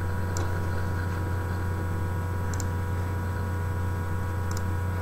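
Steady electrical mains hum with a stack of overtones, with a few faint short clicks about a second or two apart.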